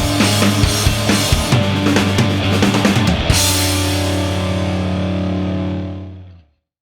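Background rock music with drums and guitar. About three seconds in the drums stop and a final held chord rings out and fades, ending in silence just before the end.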